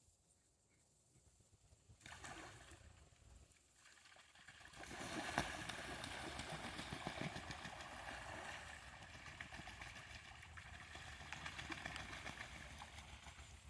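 Faint splashing and sloshing of shallow, muddy pond water as a dog wades in, starting about two seconds in and growing louder a few seconds later.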